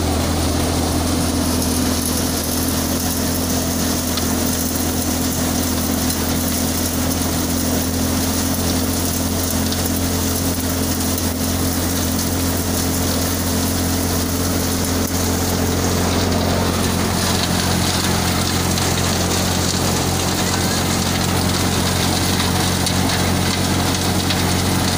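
SARDAR multicrop thresher, driven by a tractor, running at steady speed: a constant low hum with a continuous rushing hiss as dry crop stalks are fed in and threshed.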